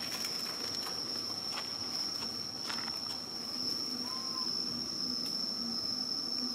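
Insects droning steadily outdoors, a single high-pitched tone held without a break, with a few short crackles of dry leaves under moving macaques.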